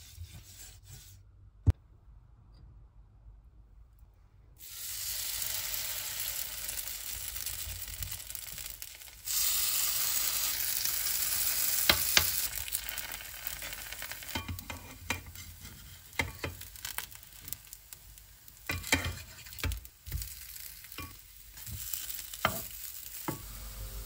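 Zucchini-potato pancakes sizzling in hot oil in a nonstick frying pan. The sizzle starts abruptly about four and a half seconds in, when the batter goes into the oil, and jumps louder about nine seconds in. From about twelve seconds on, a metal spoon clicks and scrapes against the pan as it presses the pancakes flat.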